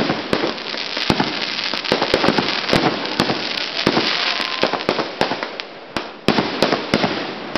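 Aerial fireworks going off in a rapid, irregular series of bangs over a constant crackle and hiss of bursting stars. A short lull comes about six seconds in, then the bangs resume with a sharp report.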